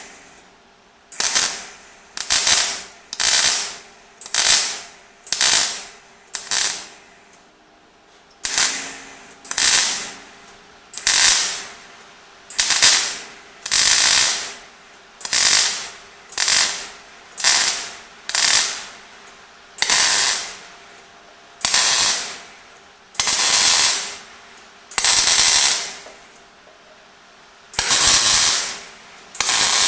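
Welder laying about twenty short spot welds one after another, each a crackling burst of up to a second, while stitching a sheet-steel repair panel into a car tailgate.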